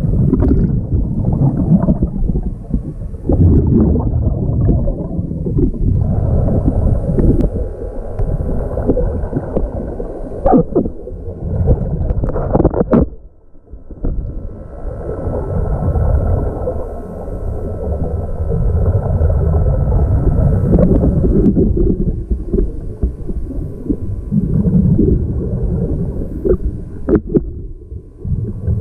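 Underwater audio: a diver breathing through an air-hose-fed regulator, with muffled rumbling and gurgling of exhaled bubbles and a few sharp clicks. The sound drops out briefly about halfway through.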